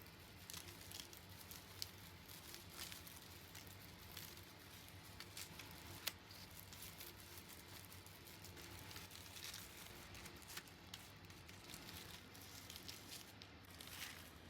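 Faint, crisp crackling and rustling, many small crunches and ticks, with one sharper click about six seconds in.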